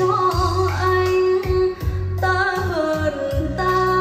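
A song with a sung vocal line over bass and a regular beat, played back through RUBY Line Array 30 Neo speakers and a subwoofer in a sound-system demonstration.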